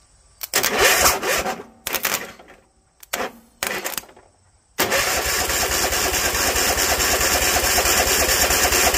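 Electric starter cranking the Bolens ST110's Tecumseh engine: a few short cranks, then one long steady crank of about five seconds. The engine turns over without firing.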